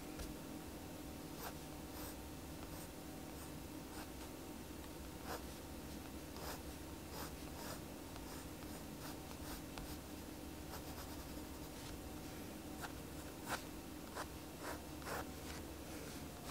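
Pencil scratching across sketchbook paper in many short, quick strokes, with the loudest strokes coming a little past the middle. A faint steady hum lies underneath.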